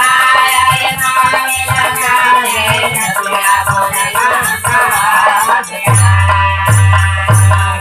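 Live birha folk-music interlude: a melody over a fast, steady jingling rattle beat. About six seconds in, deep drum strokes come in.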